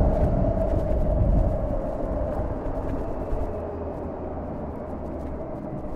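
Harley-Davidson LiveWire electric motorcycle under way: a steady whine from its electric drive over wind and road rush. The whine sinks slightly in pitch and the rush eases after about three seconds.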